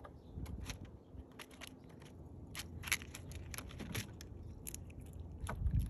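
A squirrel cracking sunflower seed shells with its teeth and chewing: quick, irregular cracks and crunches, with a low thump near the end.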